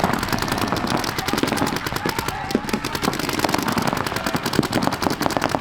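Several paintball markers firing rapid, overlapping streams of shots during a point, a dense continuous popping with no break.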